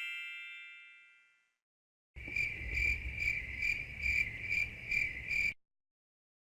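Cricket chirping sound effect: a steady pulsing trill, about two pulses a second, lasting roughly three seconds. It starts after the tail of a bell-like ding fades out.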